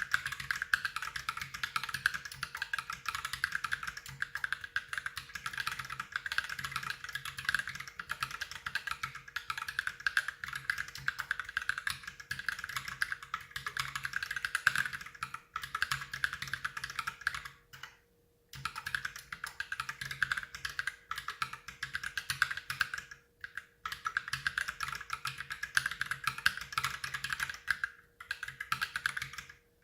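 Fast, continuous typing on an Ultimate Hacking Keyboard mechanical keyboard with lubed Holy Panda tactile switches, a steady stream of keystrokes broken by a few short pauses, the longest about two-thirds of the way in.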